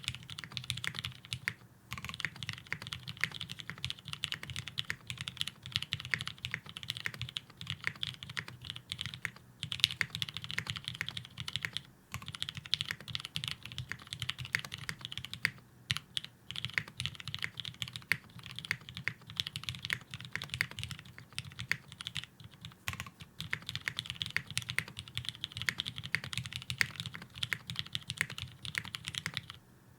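Steady, fast typing on a custom mechanical keyboard, a Gok 7v with lubed retooled Cherry MX Black linear switches on an FR4 half plate and GMK keycaps. The keystrokes come in a dense run, broken by a few short pauses.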